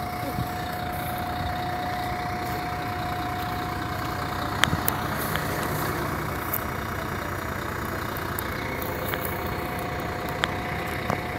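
City bus engine idling at a stop: a steady drone with a constant high whine over it that cuts off shortly before the end, and a couple of short sharp clicks.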